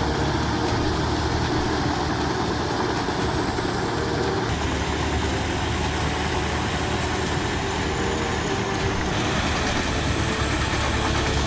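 Heavy diesel engine of a large wood chipper running steadily. The sound shifts abruptly about four and a half seconds in and again about nine seconds in.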